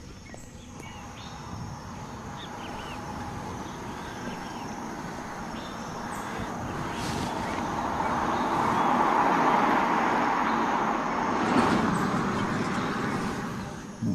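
A car passing on a road: its tyre and engine noise builds slowly, is loudest about two-thirds of the way through and fades away near the end. Faint bird chirps early on.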